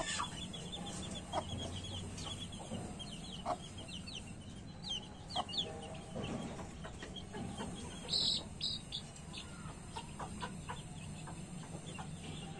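Desi chicks peeping over and over in short high notes, with a hen giving low clucks every couple of seconds. A louder call comes about eight seconds in.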